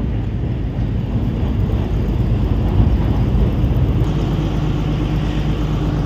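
Steady low machine rumble, with a faint steady hum coming in about halfway through.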